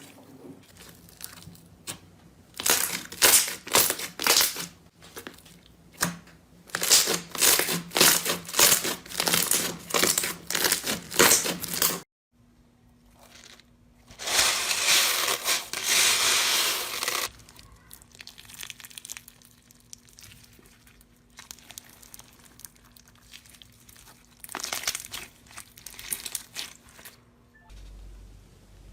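Slime being squeezed and pressed by hand, giving crackling, crunching and crinkling sounds in repeated bursts. It changes abruptly several times, with one stretch of steady crinkling in the middle.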